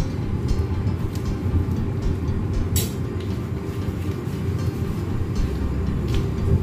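Steady low mechanical rumble of pizzeria kitchen machinery, with a short sharp noise about three seconds in.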